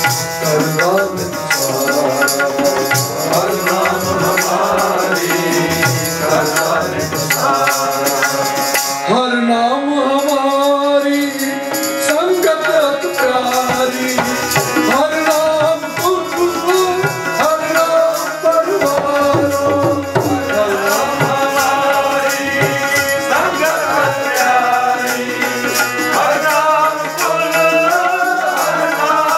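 Harmonium and tabla playing Sikh kirtan music, the harmonium holding chords and melody over a steady run of tabla strokes.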